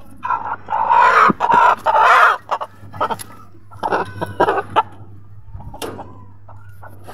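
Rooster squawking loudly as it is grabbed and pulled from its cage: a long outburst in the first two seconds, then shorter squawks about four seconds in.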